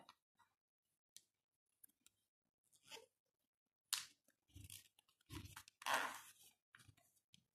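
A sheet of paper being folded and creased by hand: short, intermittent crinkles and rustles, with a few soft thumps in the middle and the loudest rustle about six seconds in.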